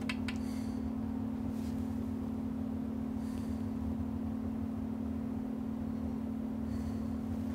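A steady low hum at one constant pitch, with a few faint ticks and rustles over it.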